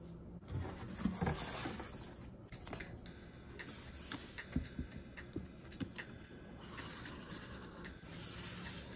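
Cardboard being handled and slid across a cutting mat, with scattered light taps and knocks, then a felt-tip marker scratching along the edge of a cardboard template as it is traced near the end.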